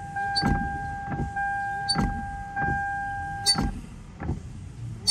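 Windshield wiper arms of an old Toyota Camry sweeping back and forth, with a knock at each turn about once a second and a steady high squeal that stops about three and a half seconds in. The squeak comes from the corroded metal joints of the wiper arms before they are lubricated.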